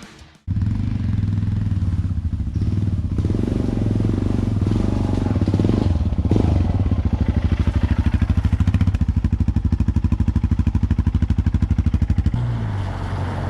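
Motorcycle engine running with an even, rapid pulse, which starts abruptly about half a second in; near the end it gives way to a steadier hiss.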